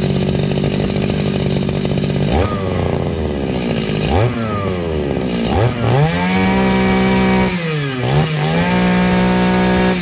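Shindaiwa S231 23cc two-stroke brush cutter engine on a test run: it idles steadily, is revved three times in quick blips, then held at high revs twice with a short drop between. It picks up sharply, very punchy for a 23cc engine.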